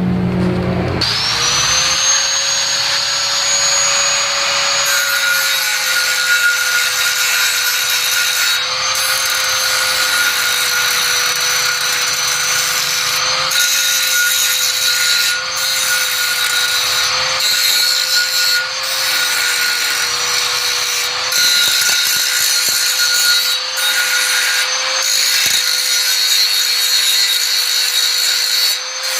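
Electric power tool's motor starting about a second in and running at steady speed with a continuous grinding rasp, as the saw is worked on in its repair after hitting a nail. The rasp breaks off briefly every couple of seconds while the motor keeps running.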